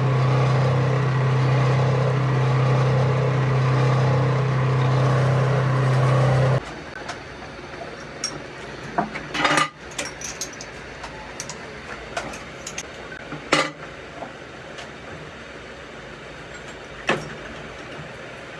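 A machine runs with a steady low hum and cuts off suddenly about six and a half seconds in. After that come a few sharp metallic clinks of hand tools on metal parts.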